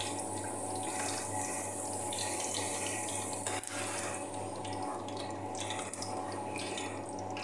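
Oil sizzling steadily around squash slices frying in a pan, with a few clicks of a metal skimmer against the pan, over a steady low hum.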